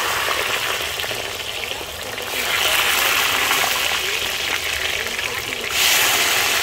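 Sliced potatoes deep-frying in hot oil in a disca (plow-disc wok): a loud, steady sizzle that swells about two and a half seconds in and again near the end as more slices go into the oil.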